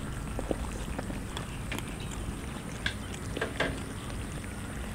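Cats eating rice and fish close up: scattered short wet chewing and smacking clicks over a steady low background rumble.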